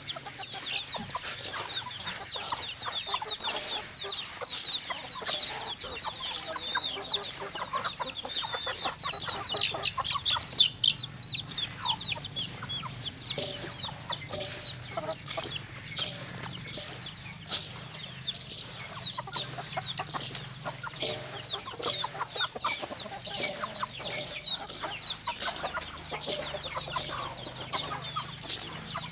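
A flock of chickens clucking and calling, with a dense stream of short high-pitched calls throughout and a louder burst of calls about ten and a half seconds in.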